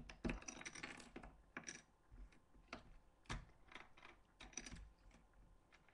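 Loose Lego bricks clicking and clattering against each other as they are sorted through by hand. The clicks come irregularly and faintly, with the sharpest ones about a third of a second in and just past the middle.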